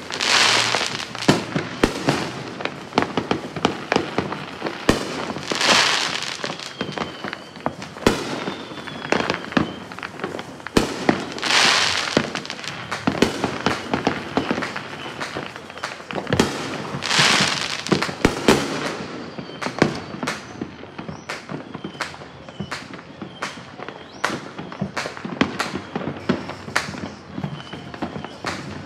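Neighbourhood fireworks and firecrackers going off, a dense, uneven run of pops and bangs throughout. Several longer hissing, crackling swells rise out of it about every five to six seconds through the first two-thirds.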